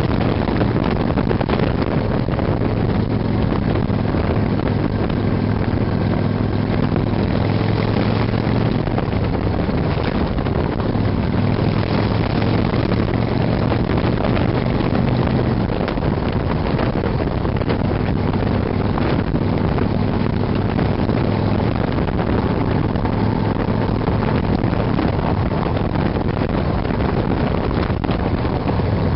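Motorcycle-and-sidecar engine running at road speed, its low drone easing off briefly a couple of times, under heavy wind rush on the microphone and road noise.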